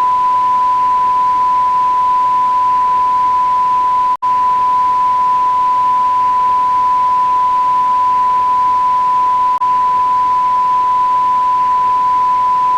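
A television off-air blackout tone: one steady, unbroken 1 kHz beep over a faint hiss. It cuts out for a split second about four seconds in, where the loop restarts.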